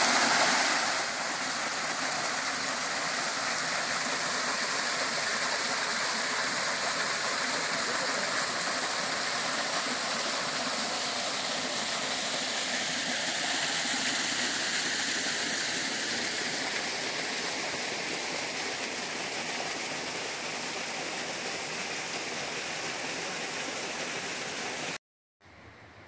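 Creek water rushing and splashing down among granite boulders in a steady rush, loudest at the start. It cuts off abruptly about a second before the end, leaving only a faint hiss.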